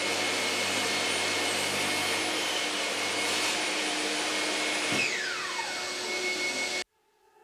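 Table saw and dust extraction running with a steady whine and rush of air. About five seconds in there is a knock and one motor is switched off, its whine falling as it winds down while the air noise carries on. The sound cuts off suddenly near the end.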